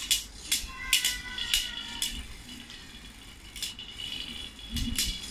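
Two Beyblade spinning tops whirling in an aluminium wok, clicking and clattering as they strike each other and the metal bowl, with the wok ringing briefly after a hit about a second in.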